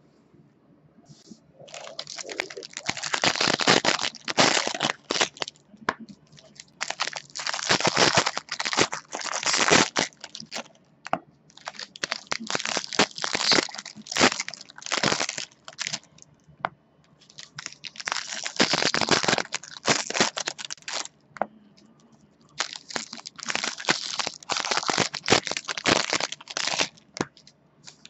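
Foil trading-card pack wrappers being torn open and crinkled by hand, in five bouts of crackling and tearing a few seconds each.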